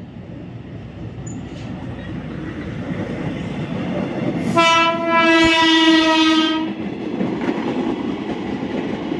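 KRL Commuter Line JR 205-series electric train approaching, its running noise growing louder, then sounding its horn in one steady blast of about two seconds midway before rumbling past on the rails.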